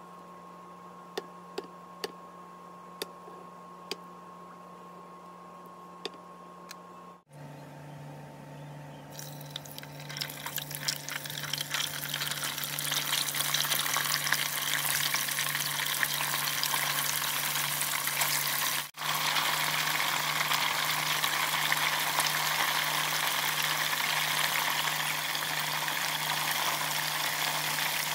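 A few light knife ticks over a steady low hum while tofu is sliced, then tofu frying in hot oil, the sizzle building up a couple of seconds in and holding loud and steady.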